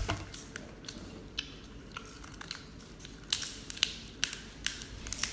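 Scissors snipping through a cooked king crab's shell, giving an irregular run of sharp cracks and snips that come thicker in the second half.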